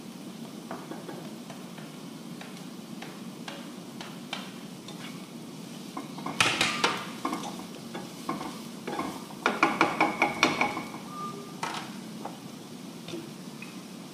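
Chopped onion, carrot and celery being stirred with a slotted spatula in a non-stick frying pan, a light sizzle under scattered clicks. Quick runs of spatula knocks and scrapes against the pan come about six seconds in and again around nine to ten seconds in.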